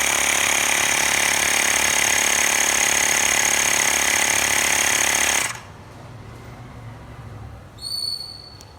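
Xiaomi Mi portable electric air compressor running with a loud, steady mechanical buzz, then shutting off suddenly about five and a half seconds in. A short electronic beep follows near the end.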